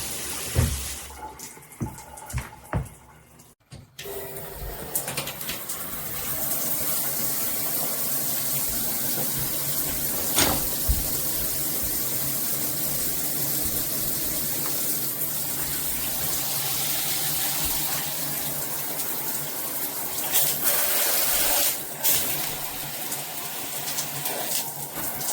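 Water spraying from a dual shower head (rainfall head and handheld) in a shower stall, a steady hiss. In the first few seconds there are a few knocks and a brief lull, then the spray starts about four seconds in and runs on evenly.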